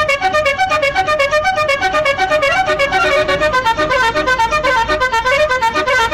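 Basuri multi-tone telolet horn on the Azzahra Holiday bus 'Zafira' playing a fast melody: a loud, unbroken run of short horn notes, several a second, stepping up and down in pitch.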